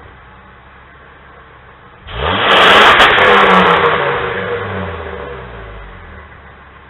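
Ford Econoline van's 6.8-litre Triton V10 idling through its exhaust, then revved hard once about two seconds in. The pitch climbs quickly and sinks slowly back down to idle over the next few seconds.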